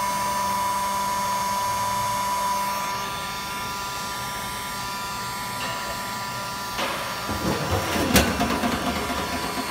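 Heat gun running steadily with a high whine, shrinking heat-shrink tubing over a soldered wire splice. It cuts off about seven seconds in, followed by handling noise and a sharp click.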